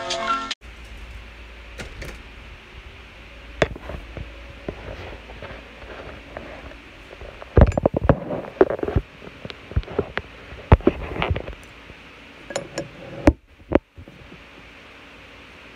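Steady hum of a window air conditioner, with scattered knocks, clicks and rustling from the camera being handled and set down, busiest about halfway through.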